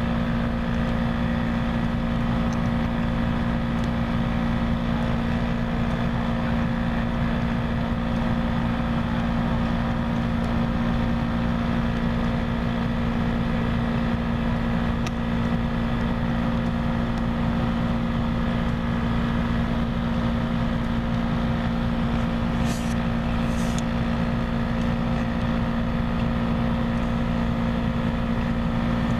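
Diesel locomotive idling, a steady, unchanging engine hum with a strong low tone. Two short high hisses come about three-quarters of the way through.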